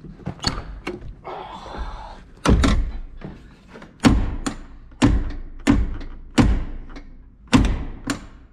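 A run of about nine sharp thunks against a truck's cab door, starting a couple of seconds in and coming roughly every half to three-quarters of a second.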